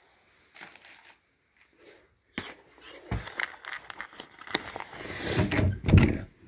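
Rustling, footsteps and knocks of someone carrying a phone through a doorway, with a sharp click a couple of seconds in and a loud low thump near the end.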